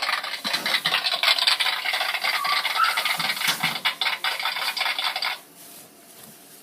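Dense, loud rattling and scraping made of many rapid clicks, cutting off suddenly a little past five seconds in.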